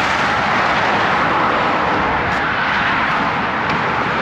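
Steady rush of highway traffic passing at speed close by.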